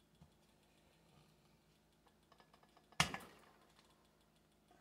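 Small clicks and ticks of hand tools and saw parts being handled at a workbench, then one sharp knock about three seconds in that rings out briefly.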